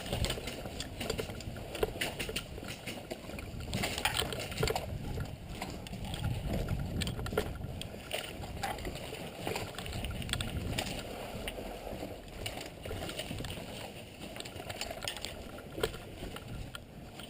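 Rustling and rumbling of a moving player's gear, with scattered sharp clicks and knocks throughout.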